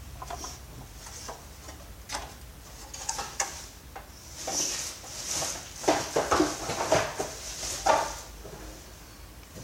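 Clatter and rustling of small scrap parts being handled and set down, with a string of sharper clicks and knocks in the second half.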